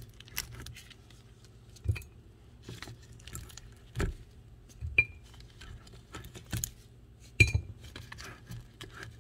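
Raw chicken feet being handled in a stainless steel bowl: scattered knocks and clinks against the metal, about one every second or so. Two of them ring briefly.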